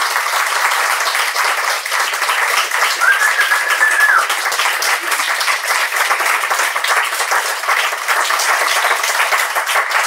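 Audience applauding: many hands clapping together, steady and continuous.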